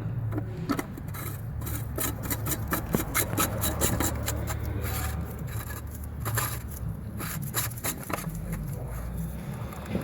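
Oil filter housing cap being screwed in by hand, its threads and new seal rubbing and clicking in short, irregular scrapes.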